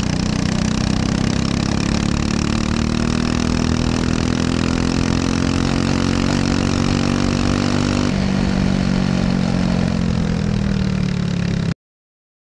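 Briggs & Stratton LO206 single-cylinder four-stroke kart engine running at racing speed, heard on board. Its revs climb slowly for about eight seconds, then shift abruptly and fall off as the kart slows. The sound cuts off suddenly near the end.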